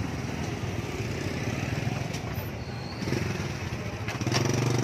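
Motor scooter engines running close by, one getting louder near the end.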